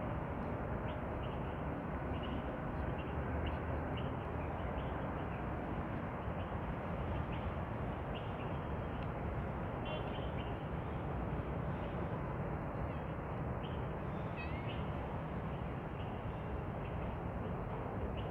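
Steady rushing background noise with scattered short, high chirping calls from small animals, and one curving call about two-thirds of the way through.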